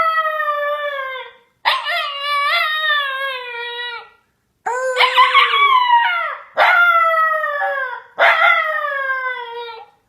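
Dog howling in answer to its name being called: about five long, drawn-out howls in a row, each sliding down in pitch, with short breaks between them.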